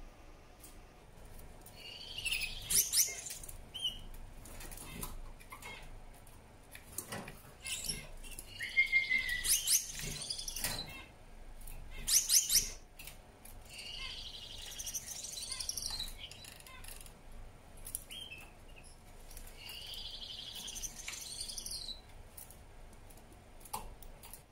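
Male Gouldian finch singing: about five short phrases of high-pitched song, a few seconds apart, with quiet pauses between them.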